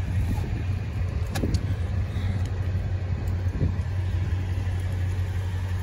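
Toyota Tundra pickup idling: a steady low engine hum.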